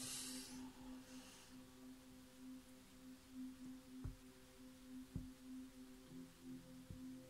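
Faint singing bowl ringing on steadily, one low tone with slightly pulsing higher tones above it. A soft hiss in the first second, and a few faint soft knocks later on.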